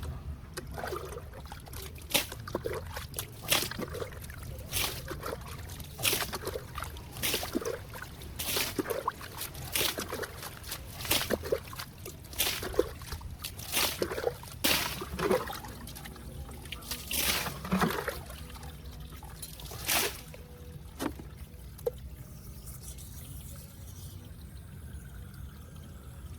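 Water being bailed out by hand from around a leaking water main: a splash as each scoop is poured out, about once a second. The splashes stop a little past three-quarters of the way through.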